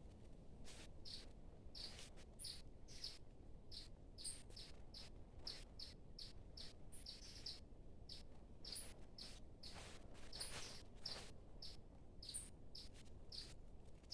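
Birds chirping faintly: short, high, separate chirps repeating irregularly a few times a second.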